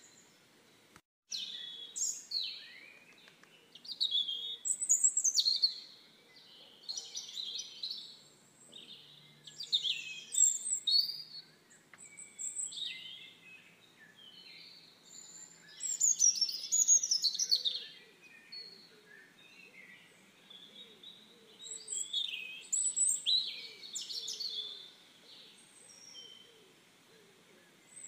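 Small songbirds chirping and singing in short bursts of quick, high, rising and falling notes that come and go through the whole stretch.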